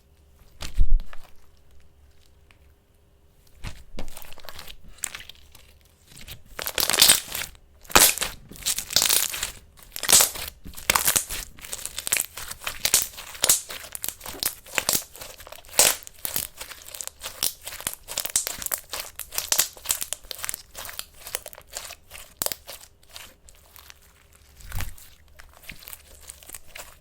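Ink slime being handled: a low thump about a second in, then from about four seconds a dense, irregular run of quick crackling, crinkling clicks that keeps going until near the end, with another soft thump near the end.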